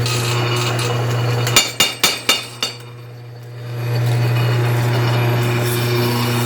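Homemade power hammer: its electric drive motor hums steadily, then the ram strikes the anvil five times in quick succession about a second and a half in, and the motor hum returns about four seconds in.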